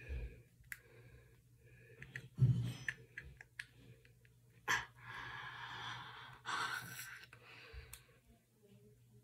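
Green plastic floss pick working between the teeth, making small scattered clicks and snaps. In the middle comes a long breathy sigh through the open mouth.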